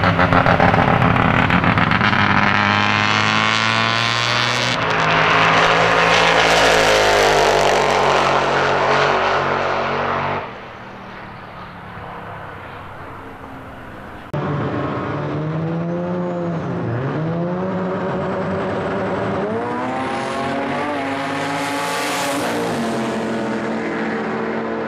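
Drag-racing Holden Commodore engine at full throttle on a quarter-mile pass, its pitch climbing through the gears. It drops to a quieter stretch midway, then comes back with engine revs that dip and rise again.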